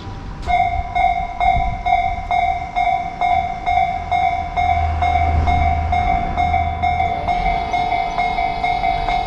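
Japanese railway level-crossing warning bell ringing in an even, steady rhythm of a little over two strikes a second. A train's low rumble swells and fades beneath it in the middle.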